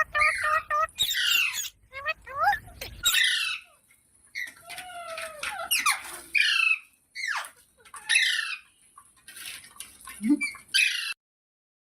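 Parrots calling: a quick run of short squawks, chirps and whistled pitch glides, some harsh, that cuts off abruptly near the end.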